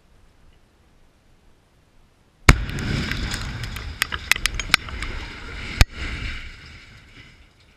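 Tannerite charge detonating at close range about two and a half seconds in: one sharp blast, followed by several seconds of rumbling noise and many sharp clicks as debris comes down, with a second sharp crack near six seconds, then fading out.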